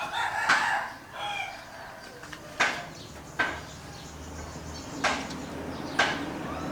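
Chickens clucking: short, sharp calls spaced about a second apart, with a few higher chirping notes in the first second or so.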